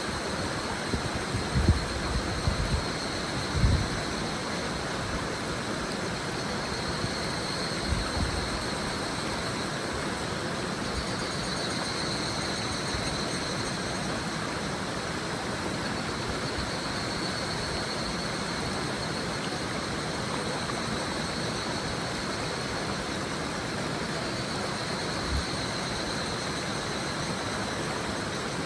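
Higurashi (evening cicadas) calling in a high ringing trill that swells and fades in waves over the steady rush of a shallow river. A few short low thumps come in the first eight seconds and once near the end.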